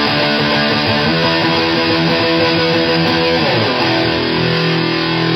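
Electric guitar heavily distorted by a 77 Fuzz Blender fuzz pedal and played through a solid-state amp, playing quick chord riffs, then sliding down in pitch about three and a half seconds in and letting a chord ring.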